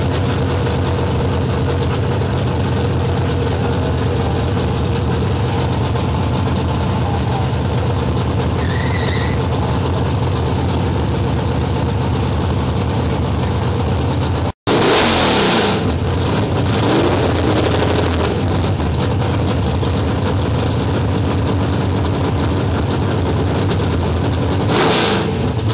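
V8 engine of a Shelby GT350-style Mustang idling loudly and steadily, with a loping beat. It briefly gets louder and rougher about halfway through and again near the end.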